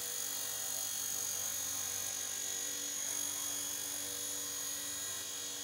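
Blade Nano S2 micro RC helicopter in flight, hovering: a steady high-pitched electric whine from its small motors and spinning rotor blades.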